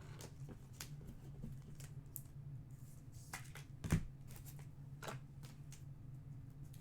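Trading cards being handled and shuffled by hand, with scattered light clicks and one sharper knock about four seconds in, over a steady low hum.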